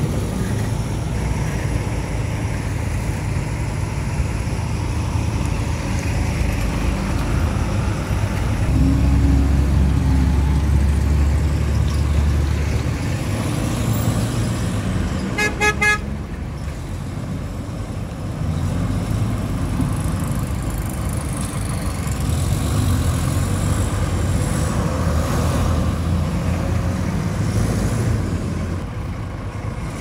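Heavy diesel engines running at an earthmoving site, with a deep engine swelling louder for a few seconds as a dump truck raises its tipper bed to unload dirt. About halfway through, a vehicle horn gives a quick string of short toots.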